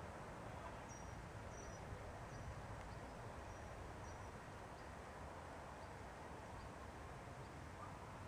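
Faint outdoor ambience with a low, steady rumble and a series of short, high chirps repeating about every half second from about a second in to about four seconds in.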